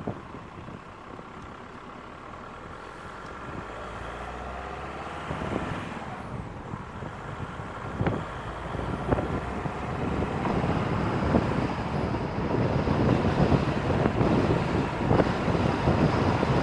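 Car driving, its road and wind noise growing steadily louder as it picks up speed, turning rougher and more buffeting toward the end.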